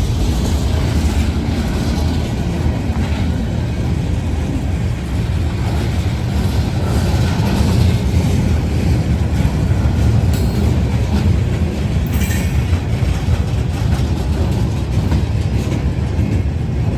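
Freight train cars rolling slowly past, a steady heavy rumble of wheels on rail, with a brief high-pitched screech from the wheels about twelve seconds in.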